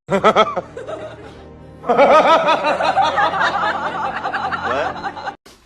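Music with rapid, repeated laughter, a quick run of "ha"-like pulses from about two seconds in that stops suddenly just before the end.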